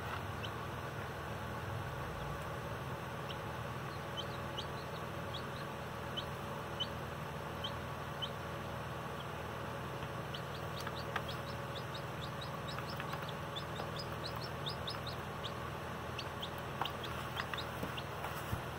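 Baby chicks peeping: short, high, falling cheeps at irregular intervals, more frequent in the second half, over a steady low hum.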